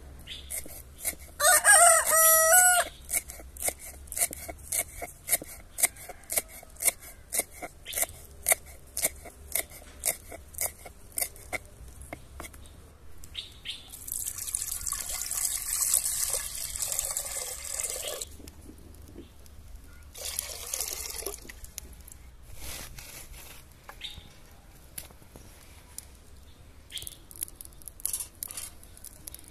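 A rooster crows once, loudly, about two seconds in. Then a knife chops fresh herbs against a wooden board in steady strokes, about two a second, for several seconds. Later comes the hiss of water poured from a clay jug into a pot, for about four seconds.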